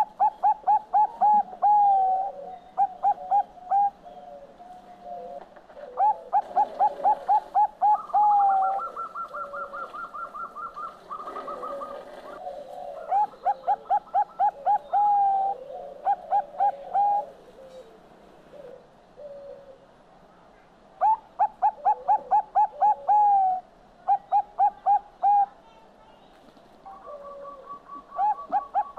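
Zebra dove (perkutut bangkok) singing its cooing song: repeated phrases of quick staccato coos, each ending in a longer drawn-out note, with pauses of a few seconds between bursts. A higher, faster trill sounds for a few seconds about a third of the way in and again near the end.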